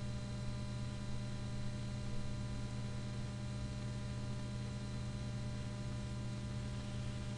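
Steady electrical mains hum with hiss on the recording: a low buzz made of many evenly spaced tones that holds unchanged, with no other sound standing out.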